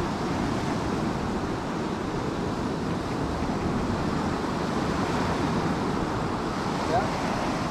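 Steady rush of ocean surf breaking on a beach, with wind buffeting the microphone.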